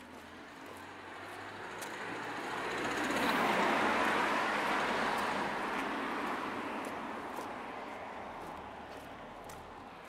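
A car passing by: its road and engine noise swells to a peak about four seconds in, then fades away.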